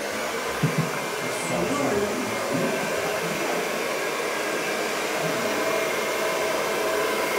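Hand-held electric hair dryer running steadily: an even rush of blown air with a faint steady motor tone.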